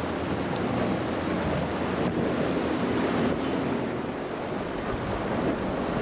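Surf breaking and wind buffeting the microphone, with a faint steady drone of a boat engine underneath, clearest about halfway through.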